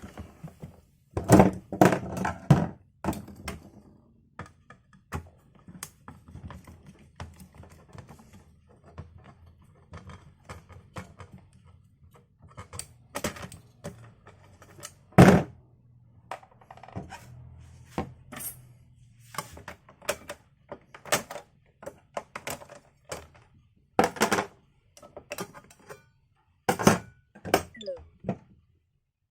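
Irregular knocks, clicks and clacks from the plastic housing of a Zojirushi electric hot water boiler being handled and taken apart. The loudest knocks come about a second in, around fifteen seconds in, and in clusters near the end.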